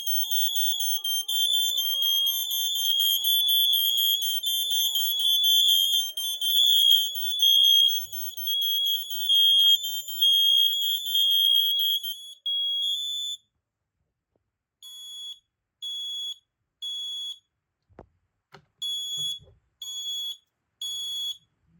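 Several smoke alarms on a demo board sounding at once, their high-pitched beeps overlapping, until they cut off about 13 seconds in. Then a single alarm gives two rounds of three beeps, the standard temporal-three smoke pattern, with a couple of clicks between the rounds.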